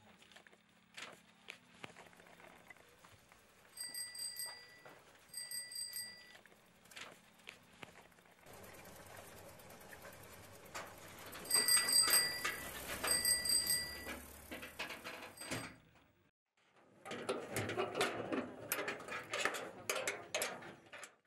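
Bicycle bell rung in short trills, twice and then twice more, louder, a few seconds later. Near the end, a run of metallic clattering and knocking as a corrugated-tin door is shut and its hasp padlocked.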